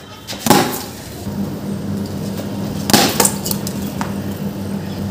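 Wooden cricket bat striking a ball tied on a rope: two sharp cracks about two and a half seconds apart, the first about half a second in, with a few lighter clicks after the second.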